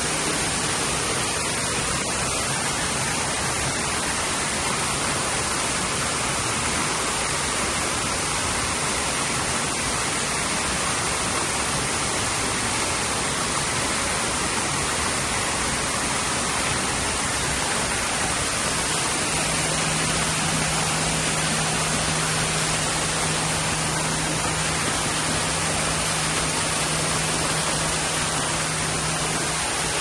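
Waterfall: a steady rush of falling water. A low steady hum comes in about two-thirds of the way through.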